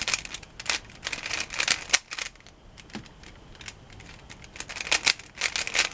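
Rubik's cube faces being turned quickly by hand: a rapid run of plastic clicks and rattles, a quieter stretch in the middle, then another flurry of clicks near the end as the move sequence goes on.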